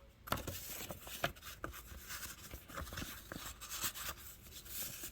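Faint rustling of old paper greeting cards and envelopes being handled and shuffled, with many small irregular clicks and crinkles.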